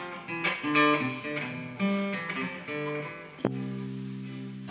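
Acoustic guitar with bass guitar playing a run of picked notes, then a chord struck about three and a half seconds in and left to ring.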